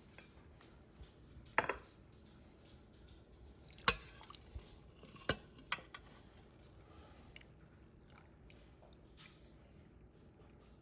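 A few sharp clinks of a utensil knocking against cookware and a plate, spaced a second or two apart, the loudest about four seconds in.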